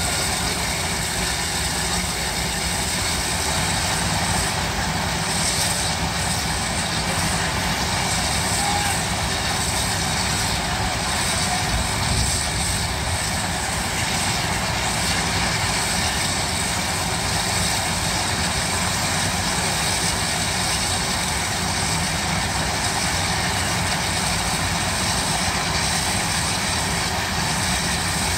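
Steam shovels working, a steady rushing noise of their exhaust and machinery that holds even throughout.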